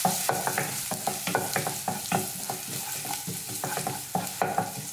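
Chopped garlic sizzling in a little hot oil in a non-stick pan, with a steady hiss, while a wooden spatula stirs it, scraping and tapping against the pan about three times a second.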